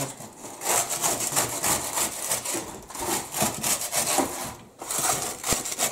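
Oven-dried minnows rustling and scraping against a metal baking tray as they are stirred and turned over by hand, in a run of irregular rasping strokes.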